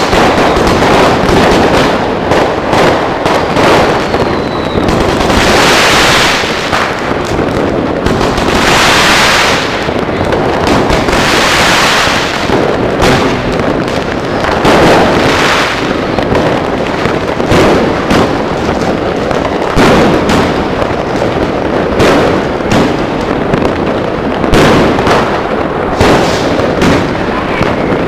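Fireworks going off at close range: a dense, unbroken run of launch thumps and shell bursts, with three longer spells of loud hissing crackle about five, nine and twelve seconds in.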